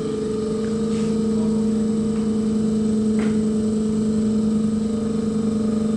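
Common-rail injector test bench running with a steady mechanical hum while it purges air from a Delphi diesel injector, the first stage before the test runs. A short click about three seconds in.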